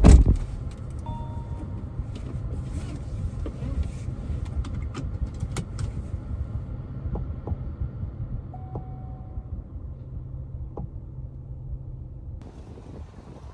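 Car driving: a steady low rumble of engine and road, with a loud thump at the very start and a few light clicks scattered through.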